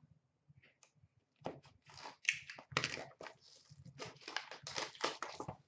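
Plastic wrap and the cardboard of a sealed hockey card box crinkling and tearing as it is opened by hand. The run of irregular crackling rustles starts about a second and a half in.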